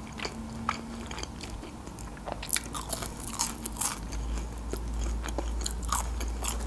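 Close-miked eating sounds: chewing, then a run of crisp crunches from about two and a half seconds in as crispy French fries are bitten and chewed.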